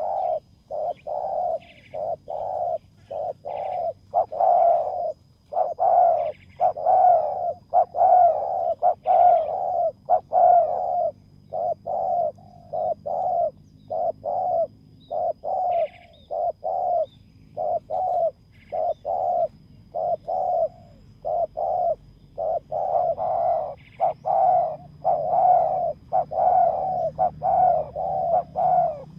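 Spotted doves cooing over and over, one coo note after another, about one or two a second without a break.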